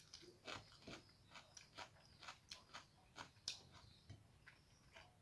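Faint eating sounds of rice and curry being eaten by hand: a run of small, wet clicks, several a second.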